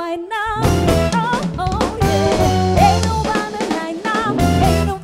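A live band playing, with the drum kit out front: kick drum and snare hits over electric bass and other pitched instruments.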